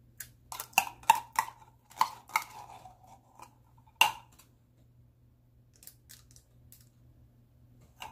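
Metal teaspoon clinking against an opened tin can of tomato paste while scooping out dollops: a quick run of sharp, ringing clinks in the first two and a half seconds, one more loud clink about four seconds in, then only a few faint ticks.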